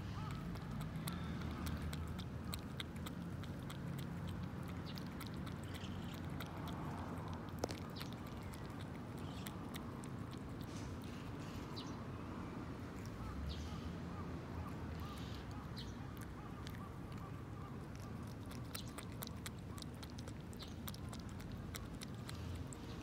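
Cat lapping and chewing a soupy treat from a small cup in close-up: a long run of quick, irregular clicks of tongue and mouth, over a steady low rumble.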